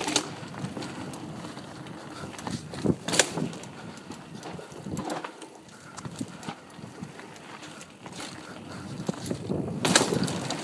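Bicycle riding fast over a bumpy dirt trail: steady tyre noise with frequent knocks and rattles from the bike jolting over bumps, sharpest about three seconds in and near the end.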